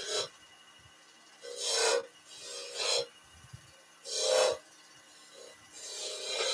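Skew chisel point cutting a series of small V-grooves into a spinning ash spindle on a wood lathe. Each cut is a short hissing scrape, about five in all, a second or so apart.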